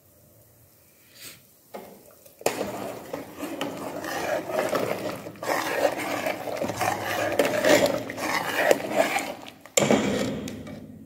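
Steel ladle stirring thin gravy in an aluminium stockpot: liquid sloshing, with the ladle clinking and scraping against the pot's sides. It starts about two and a half seconds in, goes on for about seven seconds, pauses briefly, then comes again near the end.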